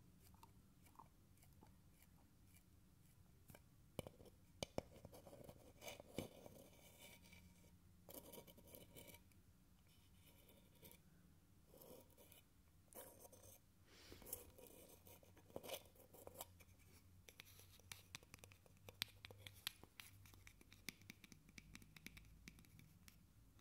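Long fingernails tapping and scratching on a small wooden box, close to the microphone: soft scratching with scattered sharp taps, which come more often in the second half.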